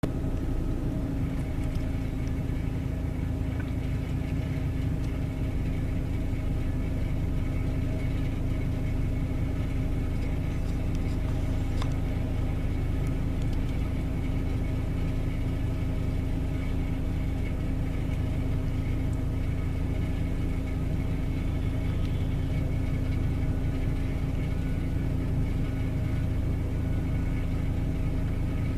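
Fire apparatus engine running steadily at a constant pitch, an even low drone with no revving.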